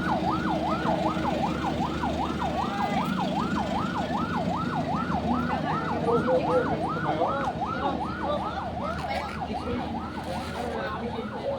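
Electronic siren in fast yelp mode, its pitch sweeping rapidly up and down about three times a second, sounding as the drill's emergency alarm.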